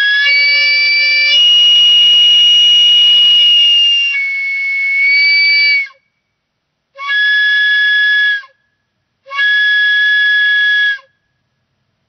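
Homemade steam whistle made from a 3/4-inch copper pipe with a filed slit, blowing on steam from a pressure cooker as its ball valve is opened and shut. It gives one long, loud blast of about six seconds whose tone shifts twice, then two short blasts of about a second and a half each that cut off sharply.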